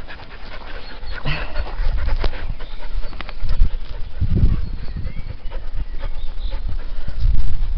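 Several dogs panting close by, over a heavy low rumble with scattered clicks.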